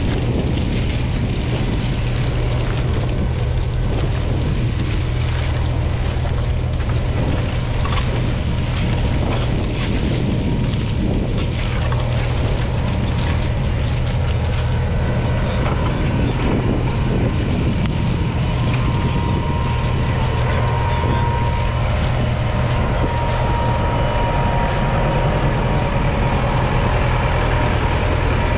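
Kubota M7-153's 6.1-litre four-cylinder diesel engine running steadily at a constant pitch.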